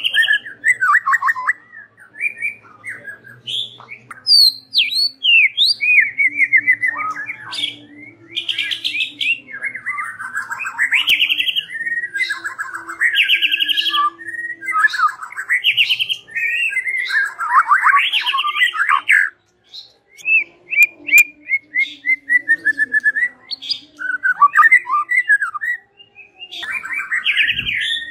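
White-rumped shama (murai batu) singing a loud, varied song of rapid trills and whistled phrases, broken by brief pauses.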